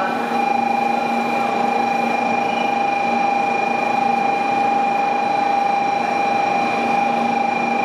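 Shinkansen platform departure bell ringing: one steady, slightly trilling electronic tone that starts just after the beginning, over the shuffle and murmur of a crowd on the platform.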